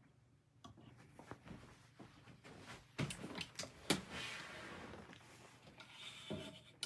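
Faint rubbing, rustling and knocks as a man sits down and settles into a leather office chair, with a few sharper clicks about three to four seconds in.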